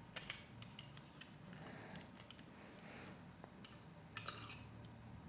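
Small plastic Lego Technic pieces clicking and tapping as they are handled and pressed together. There are a few sharp clicks in the first second and a short cluster of them a little after four seconds in.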